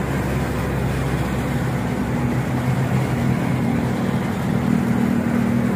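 Vehicles driving past on a street, a military 4x4 and then a minivan, with a steady low engine hum over road and traffic noise.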